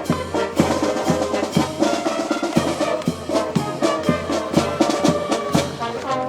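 Brass band playing march-style music, with held brass notes over a steady drum beat.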